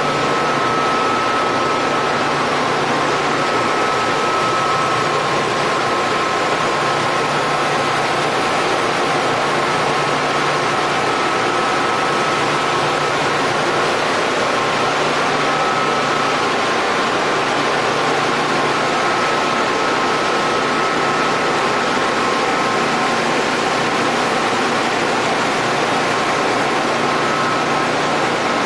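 Steady drone of running plant machinery, pumps and boiler equipment: a broad rushing noise with a high whine and a low hum held over it.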